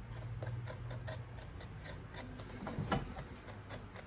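Utility knife cutting a flap into the edge of a leather sole in short, even strokes, about four ticks a second. Scooters passing outside hum underneath, and there is a louder scrape about three seconds in.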